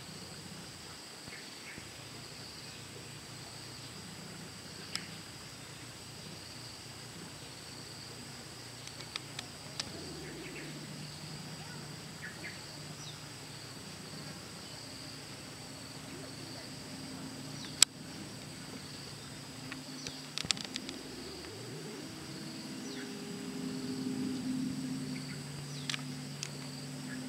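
Steady high-pitched insect chirring, a continuous shrill buzz with a faint pulse to it, under a few short sharp clicks. A low hum joins about halfway through and grows louder near the end.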